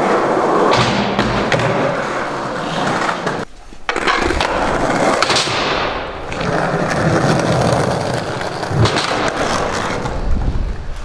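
Skateboard wheels rolling on a smooth floor, with sharp clacks and knocks of the board. The rolling drops out briefly about three and a half seconds in, then starts again.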